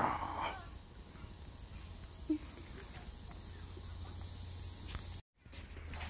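Insects trilling steadily at a high pitch over a low rumble of wind on the microphone; the sound cuts off abruptly about five seconds in.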